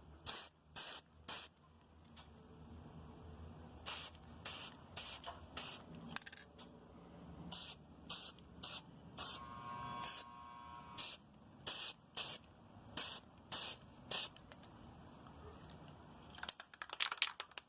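Aerosol spray-paint can (rattle can) spraying a coat of paint in many short puffs of hiss, in quick clusters. Near the end there is a rapid clatter.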